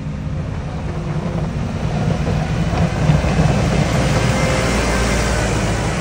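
Snowplough truck driving past close by: its engine running with a rushing noise from the plough blade pushing snow. It grows louder over the first three seconds and stays loud.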